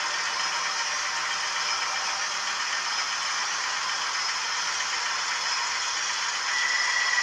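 OO gauge model trains running on the layout: a steady, thin mechanical rattle and hiss. About six and a half seconds in, a steady high tone joins and the sound grows louder.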